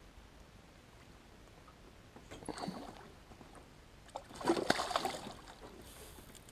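Water splashing beside a small boat: two short splashes, about two seconds in and again about four and a half seconds in, the second one louder.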